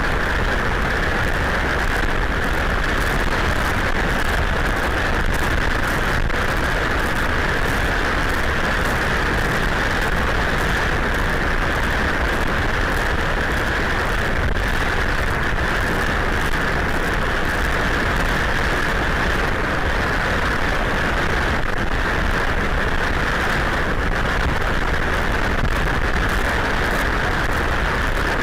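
Hurricane wind and heavy rain: a loud, steady, dense hiss with no breaks.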